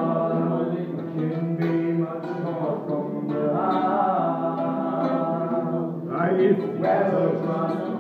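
A man singing a song while accompanying himself on an archtop jazz guitar, the voice holding and sliding between notes over the guitar chords.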